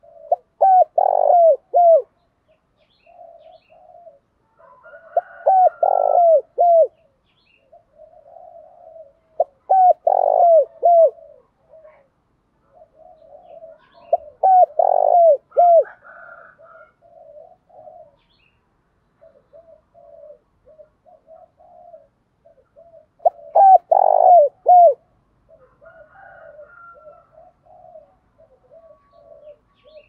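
Spotted dove cooing its song: five loud phrases of a few quick, falling coos each, several seconds apart, with softer coos in between.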